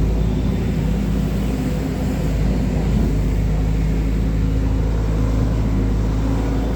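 Heavy diesel engine running steadily: a constant low drone with an even hum and no change in speed.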